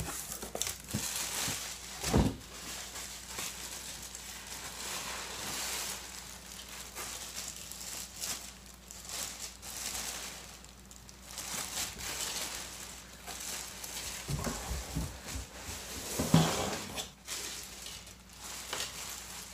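Clear plastic bag and bubble wrap crinkling and rustling as a large bagged figure is handled and lifted out of a cardboard box, with a few knocks against the cardboard, the sharpest about two seconds in.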